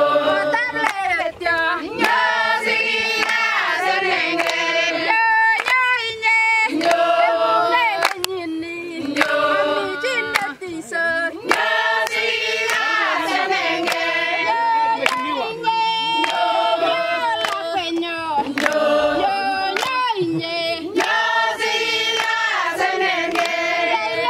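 A mixed group of men and women singing together, with steady rhythmic hand claps.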